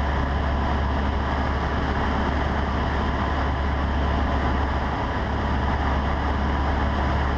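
Steady drone of a Cessna 150's four-cylinder engine and propeller in flight, heard inside the cockpit.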